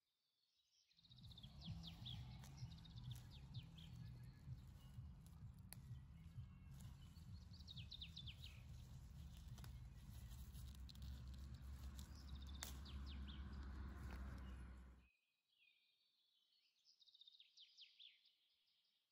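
Small birds chirping in quick falling runs, over a low rumbling noise with rustling and a few sharp clicks that stops abruptly about fifteen seconds in.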